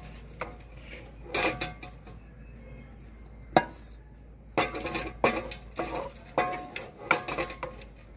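A ladle knocking and scraping against an aluminium cooking pot while spreading chicken over rice: irregular clinks, some with a short metallic ring. The sharpest comes about three and a half seconds in, and a quick run of them follows from about four and a half seconds on.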